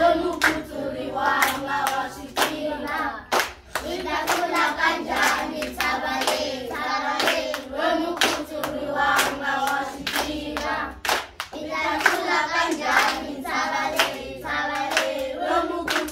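A group of children singing together, with hand claps between and under the sung phrases.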